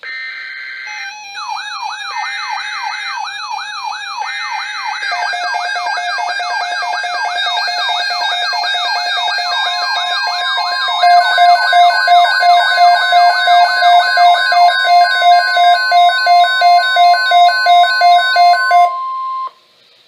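Several weather alert radios sounding their alarms at once for a National Weather Service Flood Watch: a warbling siren sweep over intermittent beeps, joined partway through by a steady tone and by loud beeps pulsing about twice a second. All of them cut off together near the end.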